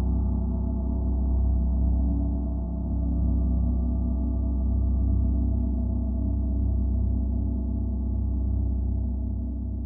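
Symphonic gong ringing in a sustained wash of many overlapping deep tones, swelling and easing in slow waves, with no fresh strike standing out.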